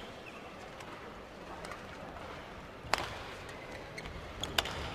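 Badminton rackets striking the shuttlecock during a rally: two sharp hits about a second and a half apart, over a low steady hall background.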